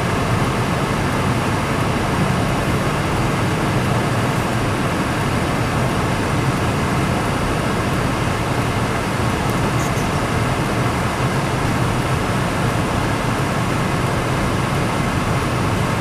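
Steady road noise heard inside a moving car's cabin: the engine running and tyres rolling over a snow-covered road.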